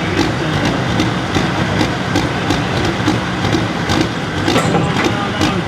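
Altered farm pulling tractor's engine running loud and steady, its uneven note wavering, with sharp crackles throughout.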